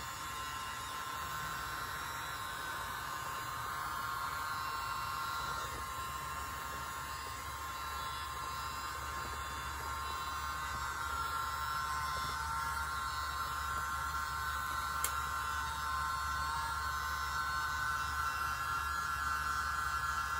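A tiny handheld mini leaf blower running steadily, a whirring hum with a high whine, blowing wet acrylic paint outward from the centre to open a flower bloom on the canvas.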